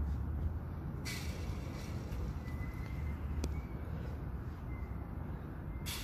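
Steady low outdoor rumble, with one short faint click about three and a half seconds in.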